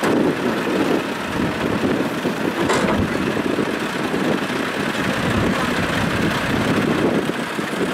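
Diesel engines of a wheeled excavator and tractors running steadily while the overturned trolley is hauled upright, with a brief knock about three seconds in.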